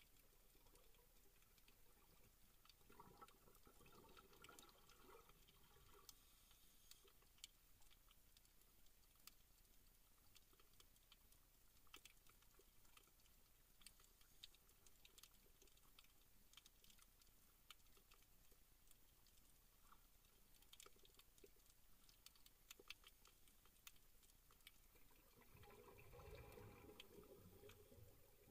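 Near silence underwater: faint, scattered crackling clicks, with a muffled low rumble a few seconds in and again near the end.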